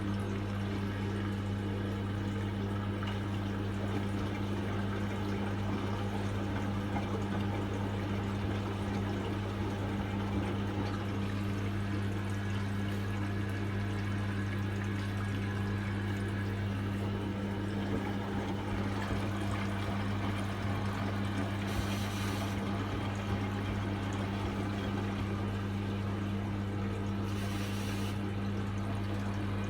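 Hotpoint washing machine running early in its cycle: water running into the drum with a steady low hum, the sound of the machine filling. Two brief hissing swishes come near the end.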